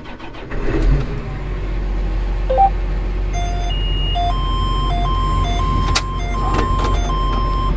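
Tractor engine starting up and settling into a steady low idle, heard from inside the cab. From about two and a half seconds in, a repeating two-tone electronic warning beep from the cab sounds over it.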